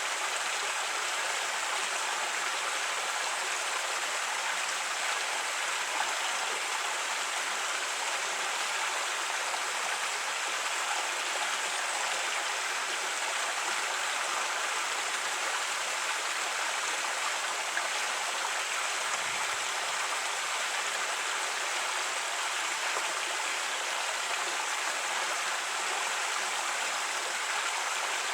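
Creek water running and burbling over rocks, a steady even rush, with a faint low thump about two-thirds of the way through.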